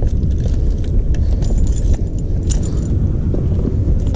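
Wind rumbling on the microphone, with scattered light clicks and metallic jingles from two baitcasting rods, their reels and a dangling spinnerbait knocking together as they are carried over jetty rocks.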